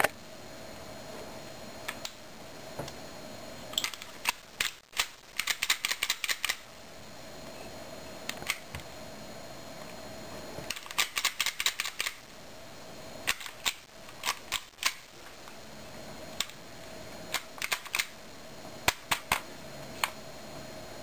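KSC Glock 18C airsoft pistol being worked by hand: sharp plastic-and-metal clicks and clacks from the slide and trigger, in two quick runs of several clicks a second, with scattered single clicks between.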